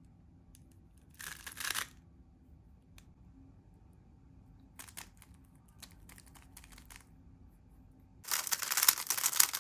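A plastic 3x3 Rubik's cube being turned by hand, its layers clacking and rasping as they turn. A short quick burst of turns comes about a second in, a few scattered clicks follow later, and near the end a loud, fast, unbroken run of turns begins as an algorithm is executed.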